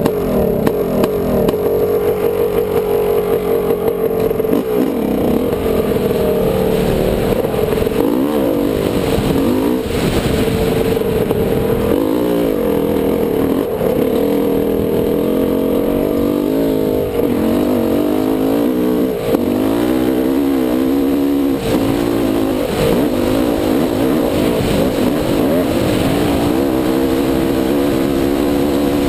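Dirt bike engine heard close up from the bike as it rides a rough dirt trail, its pitch rising and falling again and again with the throttle.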